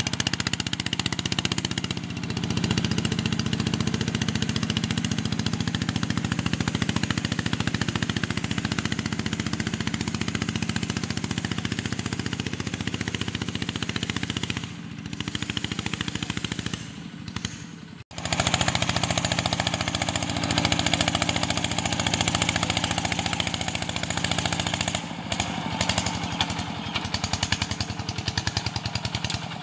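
Single-cylinder diesel engine of a two-wheel walking tractor running under load as it pulls a disc plough, its exhaust loud with a rapid, even pulse. It dips, cuts out for an instant around eighteen seconds, then runs on.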